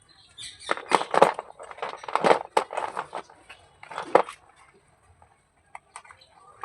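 Slate pencils being handled, a dense scratchy clatter in several bursts over the first four seconds, then a few single clicks.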